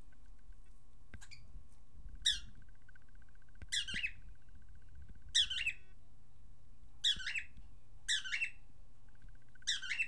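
Cockatiel giving about six short, sharp calls, each sweeping downward in pitch, about one every one and a half seconds.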